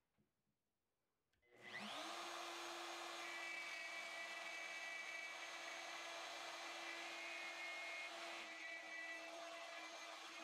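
Compact DeWalt plunge router with a spiral bit is switched on about a second and a half in, whines up to speed in a fraction of a second, and then runs steadily.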